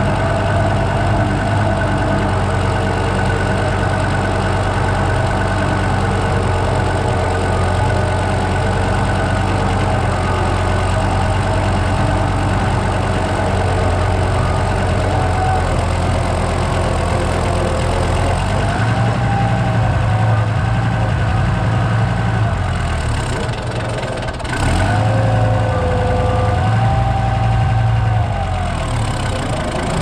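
Farm tractor engine running steadily as it drives. In the last third its note shifts and wavers as the front loader picks up a round hay bale.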